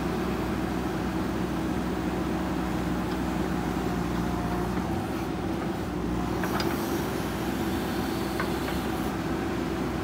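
JCB 3DX backhoe loader's four-cylinder diesel engine running steadily under load as the backhoe arm digs and lifts soil.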